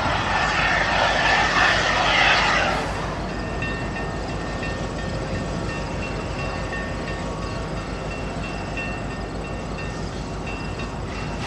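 Challenger steam locomotive approaching in the distance: a loud hissing rush for the first two and a half seconds that cuts off abruptly, then a steady, quieter low rumble of the running engine.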